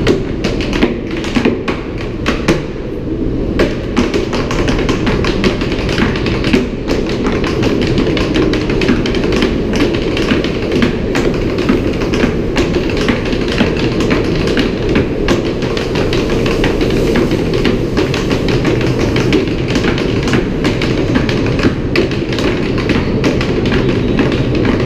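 Two dancers' tap shoes striking portable wooden boards in quick, rhythmic tap steps, a dense run of sharp clicks and knocks.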